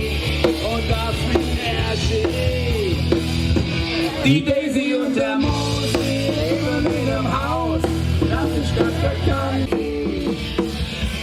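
A rock band playing live: drums, bass and electric guitar, with a melodic line over the top. The bass and drums drop out briefly about halfway through, then the band comes back in.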